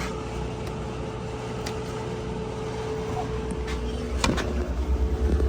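Steady hum of a just-started side-by-side refrigerator's compressor and condenser fan, mixed with a clothes dryer running; a sharp click a little past four seconds in, and a heavier low throb building near the end.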